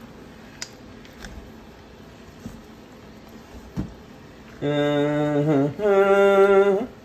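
A person's voice holds two long sung notes near the end, the second higher than the first and sliding up as it stops. Before that, a few faint knocks of a wooden spoon stirring dough in a steel mixing bowl.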